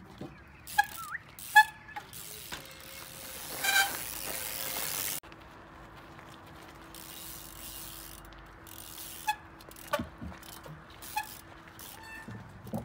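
Trials bike hopping and landing on concrete blocks and pipes: a series of sharp knocks from the wheels striking concrete, the loudest about a second and a half in, with the freewheel ratcheting in between. A stretch of hiss cuts off abruptly about five seconds in.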